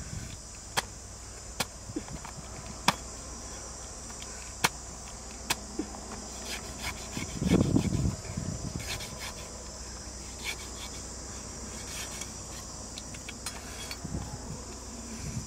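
A steady high chorus of crickets, with a string of sharp knocks in the first half as a cleaver chops into the husk of a palmyra palm fruit, and a louder dull thump about halfway through.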